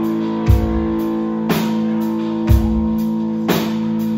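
Live band playing an instrumental passage: electric guitars and bass guitar holding a steady chord, with a bass drum thumping about once a second and sharper drum hits between the thumps.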